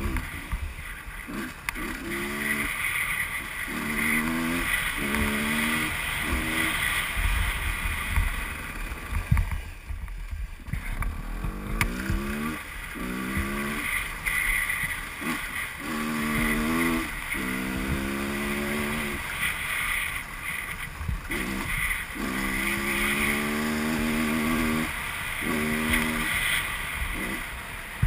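125cc two-stroke enduro motorcycle engine under way, its pitch climbing again and again as it revs through each gear and dropping at every shift or throttle lift. A low wind rumble on the helmet-mounted microphone runs beneath it.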